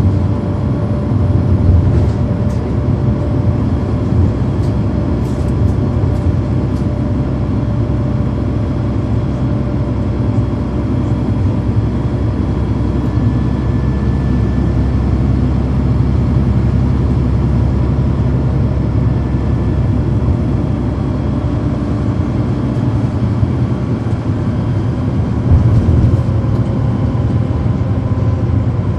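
Interior sound of a NABI 40-foot transit bus under way: its Cummins ISL9 inline-six diesel runs steadily through a ZF Ecomat six-speed automatic, heard from inside the cabin as a constant low drone. A few light rattles sound in the first several seconds.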